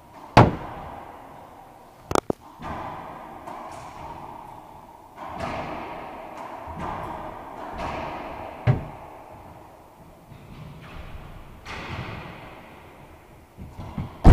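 Racquetball rally: sharp smacks of racquets hitting the ball and the ball striking the court walls, a dozen or so knocks ringing out in the echoing court. The loudest comes about half a second in, with a quick double crack about two seconds in.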